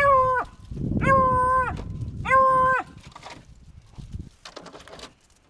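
Beagles baying at the rabbits on the tailgate: three loud, long, even-pitched calls in the first three seconds, each dropping in pitch as it ends.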